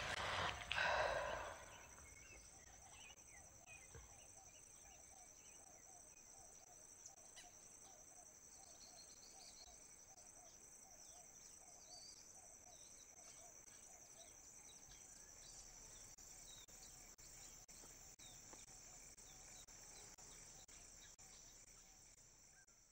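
Quiet rural ambience: a steady high-pitched insect drone, with a soft chirp repeating about twice a second and scattered bird calls.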